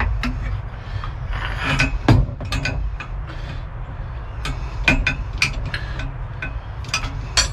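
Irregular metallic clicks and clinks from a socket and engine rotation adapter on the crankshaft of a Mercruiser 4.3 V6 as the engine is turned by hand, now broken free after being seized. A low steady rumble runs underneath.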